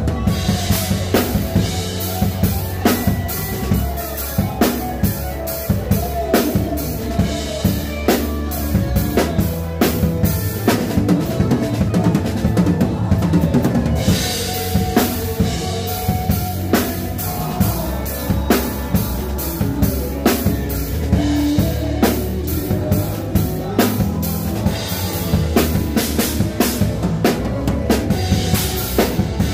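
Odery drum kit played live at a steady beat, kick, snare and cymbals heard close up, with a cymbal crash about halfway through, over the band's bass and electric guitar in a worship song.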